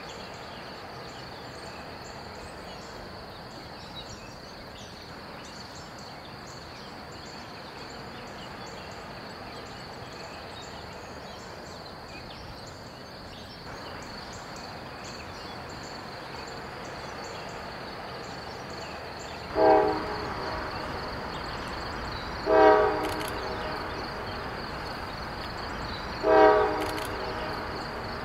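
Diesel freight locomotive's multi-chime air horn sounding three short blasts about three seconds apart, over the low rumble of the approaching intermodal train, which grows after the first blast.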